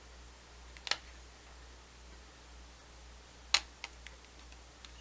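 A few sharp clicks and taps from handling a small watercolor palette and its pans: one about a second in, the loudest about three and a half seconds in, followed by a few lighter ticks.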